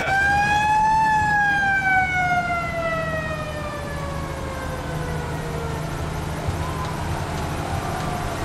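Fire truck siren wailing: it rises to a peak about a second in, then falls slowly over several seconds, and begins to rise again near the end. Underneath runs the steady low rumble of the fire truck's engine, heard from inside the cab.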